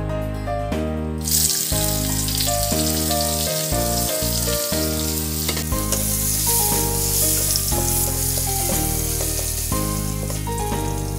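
Sliced onions dropped into hot oil in a wok, breaking into a loud sizzle about a second in that carries on steadily as they fry and are stirred.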